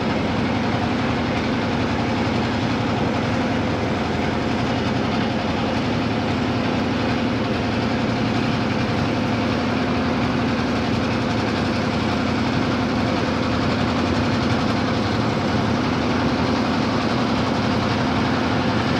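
A boat's engine running steadily, heard from on board: an even, unbroken drone with a strong low hum.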